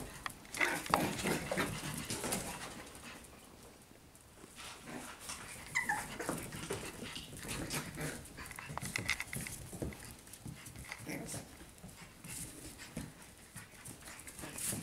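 Young puppies playing: short yips and whimpers among light scuffling and clicks on a tile floor.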